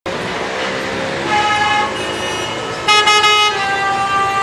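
City street traffic with car horns honking: several long horn blasts overlap, the loudest starting about three seconds in.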